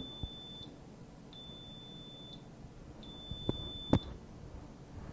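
Piezo buzzer on an Arduino-controlled Nerf sentry giving high-pitched one-second beeps at a steady pace, three in all. This is the countdown warning that the gun will start firing unless an RFID card is scanned. Two sharp clicks come near the end of the last beep, the second one loud.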